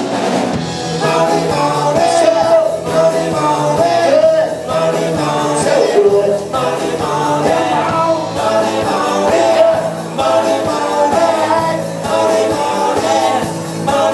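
Live rock-and-roll band playing a song, with a steady beat under a shifting lead melody.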